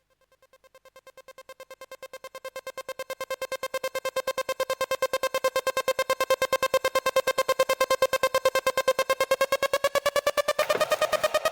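Electronic intro music: one pulsing synthesizer tone, about eight pulses a second, fading in from silence and then holding steady, rising slightly in pitch near the end.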